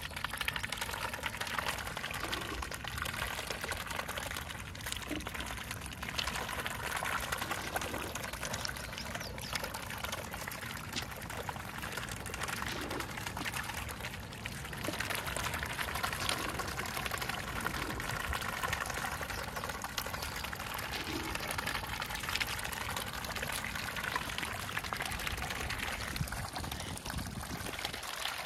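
Water splashing and trickling steadily, with many small clicks through it.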